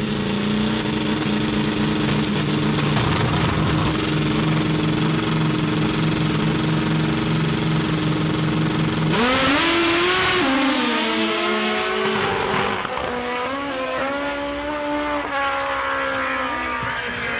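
Pro Extreme drag motorcycle engine running steadily at the starting line, then launching about nine seconds in: the pitch climbs sharply, drops back at each gear change and climbs again as the bike pulls away down the track.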